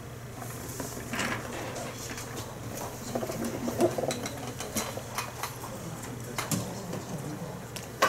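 Classroom room noise: a steady low hum under scattered light clicks and knocks, with faint, low murmuring voices; a sharper knock comes near the end.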